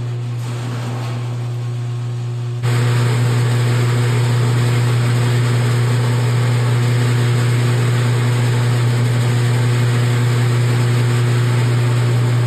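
Sheet-metal roll-forming machine (a button punch power flanger) running with a steady electric motor hum. About two and a half seconds in it abruptly gets louder and harsher and stays that way.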